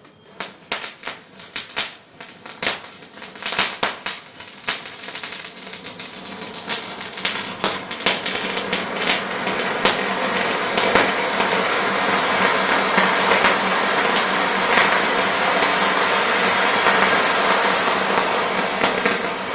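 Crackling flower pot (anar) firework burning: a fast, irregular run of sharp crackles and pops that thickens over about ten seconds into a steady, loud hiss of the spark fountain, still shot through with crackles.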